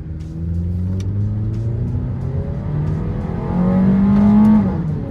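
2012 Mazda 3 Skyactiv 2.0 inline-four accelerating under load through its aftermarket exhaust, revs climbing and then dropping quickly near the end as the automatic shifts up. It runs smoothly with no misfire now that the failed ignition coil pack on cylinder 2 has been replaced.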